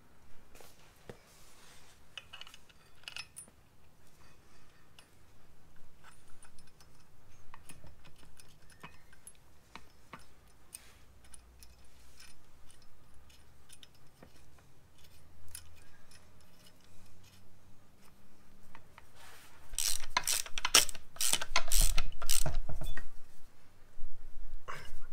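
Light metallic clinks and knocks as a brake caliper is handled and fitted over the disc, then, about twenty seconds in, a socket ratchet clicking rapidly and loudly as the caliper bolts are run down.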